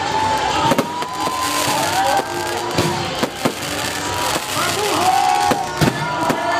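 Fireworks going off in a string of sharp bangs, over music and voices.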